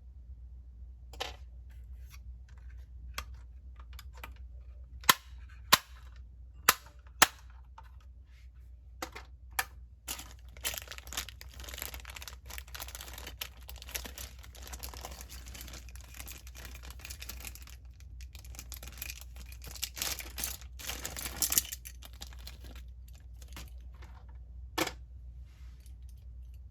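Hands handling a die-cast model car and its packaging: several sharp clicks and taps, four of them loud in quick succession, then a long stretch of plastic rustling and crinkling, and one last click near the end. A steady low hum runs underneath.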